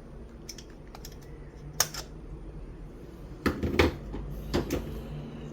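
Irregular clicks and clatter of small hard parts being handled: a few light ticks, a sharp pair about two seconds in, then a louder cluster of knocks about three and a half seconds in and a few more near the end.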